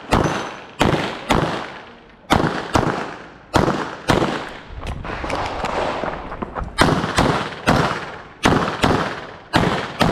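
Rapid pistol shots in a practical shooting course of fire, about fifteen in ten seconds, many fired as quick double-taps, each with a short echoing tail.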